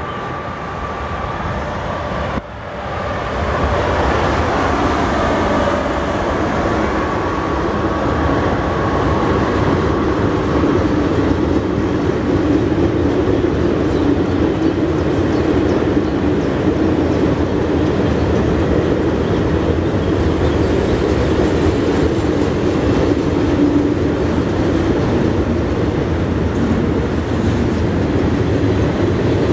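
Electric-hauled freight train passing close by. A whine falls in pitch as the locomotive goes past a few seconds in, and the sound gets suddenly louder. Then comes the steady rumble and clatter of loaded flat wagons rolling over the rails.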